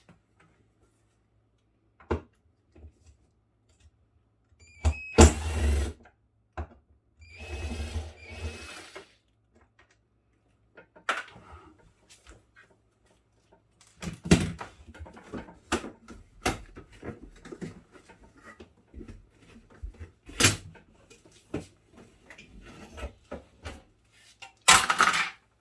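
Cordless drill-driver run in two short bursts to back out bolts, then a string of clicks and knocks as screws and plastic parts are handled.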